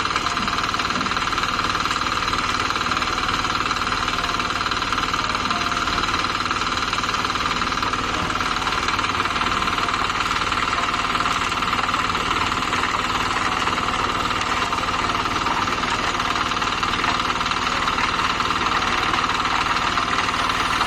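Engine of concrete-pouring equipment running steadily, with a constant drone and no change in speed.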